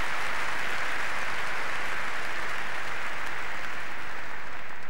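Spectators' applause at a tennis match, many hands clapping, dying away near the end.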